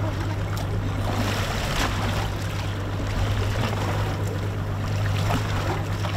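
Evinrude outboard motor idling with a steady low hum, while water splashes and sloshes against the boat's hull.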